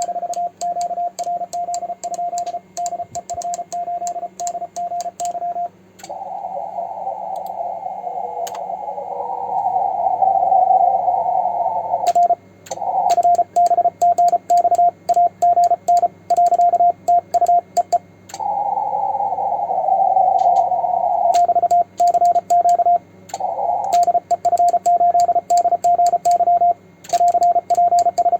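Fast Morse code from a transceiver's CW sidetone: one steady beep keyed in quick dots and dashes by a homemade 3D-printed paddle key, with the paddle's contacts clicking in time. Between the sending runs come stretches of band hiss through the narrow CW filter.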